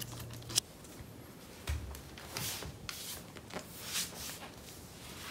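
Faint rustling and handling noise, with a sharp click and a dull knock in the first two seconds.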